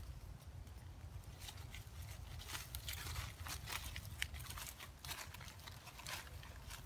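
Dry rustling and crackling of leaves and twigs, a cluster of short sharp crackles through the middle, over a low steady rumble.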